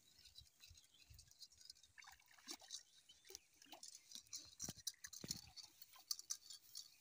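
Near silence: faint outdoor ambience with scattered soft clicks.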